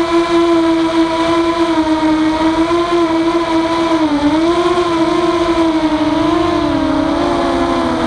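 Walkera F210 racing quadcopter's four brushless motors and propellers whining steadily in flight, the pitch wavering up and down with the throttle and dipping briefly about four seconds in.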